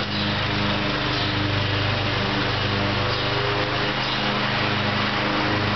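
A motor running steadily: a constant drone with a hum and a hiss over it.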